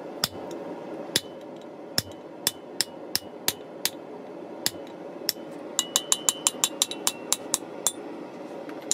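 Hammer striking a hand chisel held on a red-hot mild steel bar on the anvil, walking the chisel along to cut a marking line. Sharp metallic taps come spaced out at first. About two thirds of the way in they turn into a quicker run of about four a second, some of them ringing.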